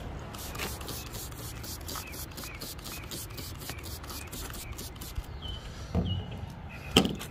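Wiping a car's side window: a rapid, uneven run of short rubbing strokes on the glass, with a couple of louder strokes near the end.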